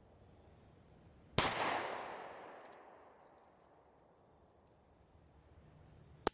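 A single shot from a Smith & Wesson 686 Plus .357 Magnum revolver fired in single action, its report fading out over a second or so. A short sharp click follows near the end.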